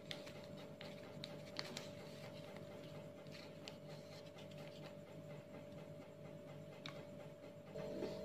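Quiet room tone: a steady low hum with a few faint scattered clicks. Near the end the hum grows louder and fuller.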